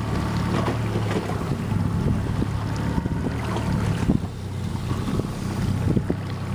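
A boat's motor running with a steady low hum, and wind buffeting the microphone.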